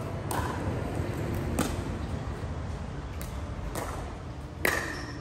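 A rally of sharp hits on a ball, several strikes about a second apart, each with a short ring, the loudest near the end.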